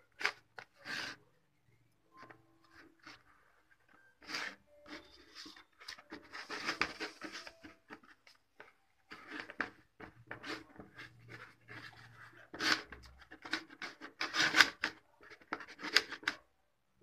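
Fingers rubbing ghee over the inside of a plastic tray: irregular rubbing strokes with short pauses, louder and closer together near the end.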